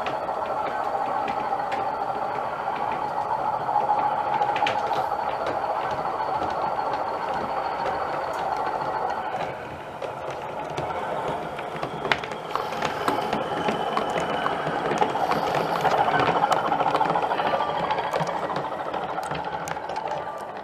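O gauge model diesel locomotives running on the layout, their DCC sound decoders playing diesel engine sound over the whirr of the motors and the rattle of wheels on track. The sound drops away about halfway, then builds again.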